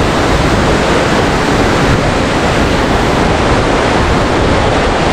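Loud, steady rush of a large waterfall's falling water.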